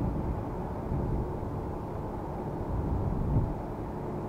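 Strong wind blowing across the microphone: a steady low rumble of noise, swelling slightly about three seconds in.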